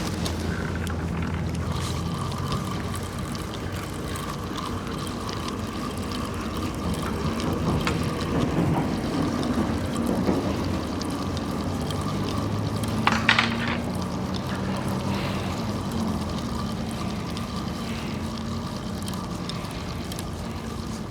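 Steady low mechanical hum with a faint higher whine, over wind noise. There is a short crackle about 13 seconds in.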